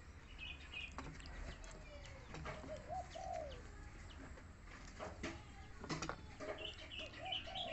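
Faint animal calls: short rising-and-falling coos in two small runs, about two and a half seconds in and again near the end, with a few higher chirps and scattered soft clicks.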